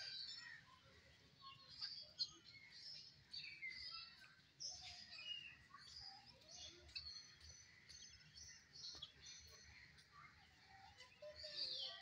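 A flock of helmeted guinea fowl calling faintly: many short, scattered chirps and chatters overlapping throughout, with a few louder calls now and then.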